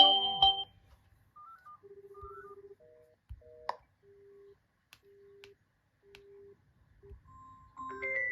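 Smartphone call tones. A melodic ringtone dies away at the start, followed by a few short electronic beeps and a two-note tone that ends in a click. Then a low steady beep repeats about once a second, like a calling tone, and a new melodic ringtone starts near the end.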